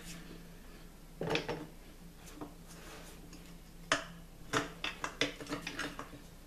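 Steel tire spoon clinking and scraping against the tire changer's metal frame and the spoked rim as it is levered under the tire bead and locked into place. A few scattered metallic clinks about a second in, then a quicker run of them near the end, over a steady low hum.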